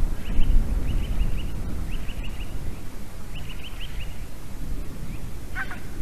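White-tailed eagle calling: short bursts of quick, high yelping notes repeated about once a second, with a louder, fuller call near the end. Wind rumbles low on the microphone under the calls.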